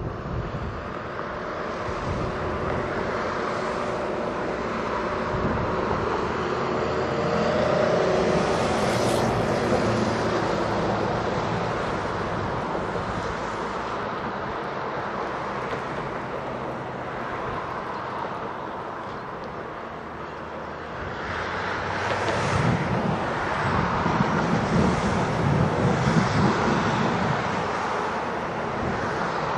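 Aarhus light rail train running along the track: a steady rolling rumble with a faint motor hum, which grows louder and rougher about two-thirds of the way through.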